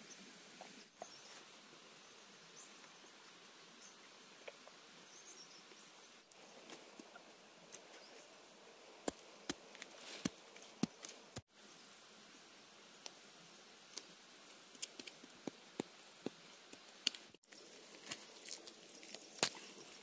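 Insects droning in a faint, steady high thin tone outdoors, with scattered sharp clicks and taps that come thicker in the second half.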